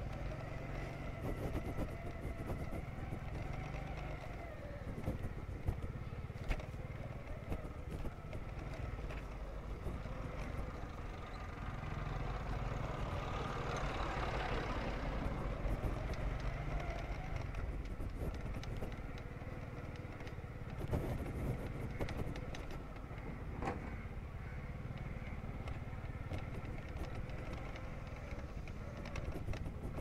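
Heavy vehicle engines running steadily, with a truck passing close by and growing loudest about halfway through.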